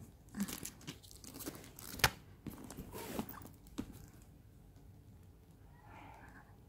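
Handling noise from a leather-handled tote bag: rustling and scraping of the leather handles and cloth, with scattered clicks and one sharp knock about two seconds in. The rustling dies down after about four seconds.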